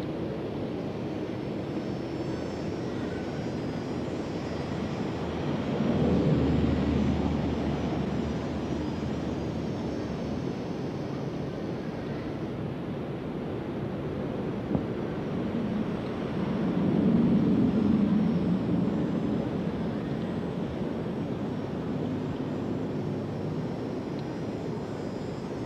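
A steady rushing drone that swells louder twice, about six seconds in and again a little past the middle, each swell lasting a few seconds.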